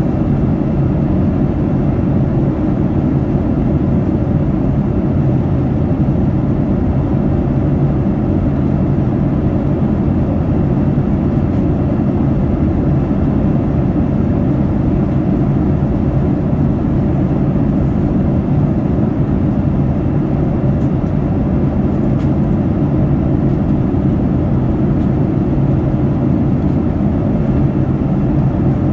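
Steady cabin noise of a Boeing 787 Dreamliner in flight: a constant low rush of engine and airflow noise, with a few faint steady tones above it.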